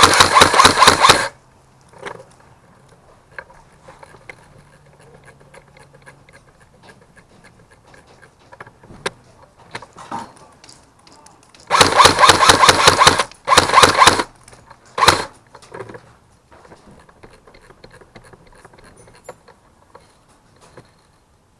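Airsoft guns firing loud full-auto bursts, a rapid rattling stream of shots. One burst cuts off about a second in. Near the middle comes a longer burst, then a shorter one and a brief one, with scattered faint clicks between.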